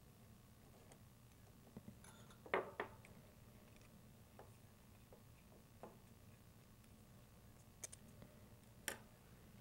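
Near silence with scattered faint clicks and taps from handling small helicopter parts: the vertical tail fin and its tiny screws coming off with a 1.5 mm hex key. The loudest is a quick pair of clicks about two and a half seconds in.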